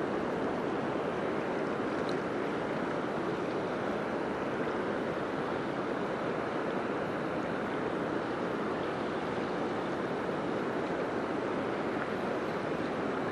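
Steady rushing of river water below a dam, an even wash of noise with no distinct events.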